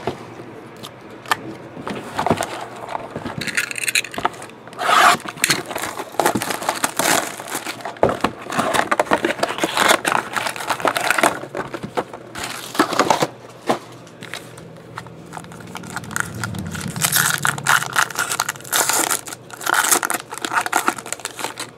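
Foil trading-card pack wrappers and a cardboard hobby box being handled: irregular crinkling, scraping and tearing as a pack is pulled out of the box and ripped open.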